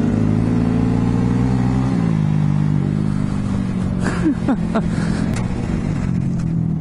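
Honda Grom's 125 cc single-cylinder four-stroke engine running at steady throttle, its note dropping about two seconds in. Another mini bike's engine revs up briefly near the middle.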